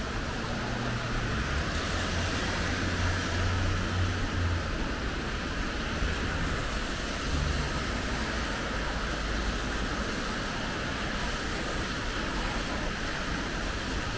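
Steady rain falling on a wet city street, an even hiss throughout. A low vehicle engine rumble sits under it for the first few seconds.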